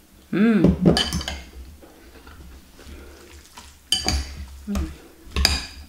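A metal fork and spoon clinking and scraping against a glass bowl as noodle soup is stirred and mixed, with a few sharp clinks and softer scraping between them. A short hummed "mm" comes about half a second in.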